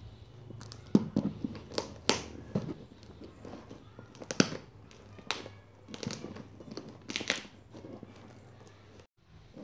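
A cardboard shipping box being handled and opened by hand: irregular scratching, crinkling and tearing of packing tape and paper, with a few sharp taps. A steady low hum runs underneath.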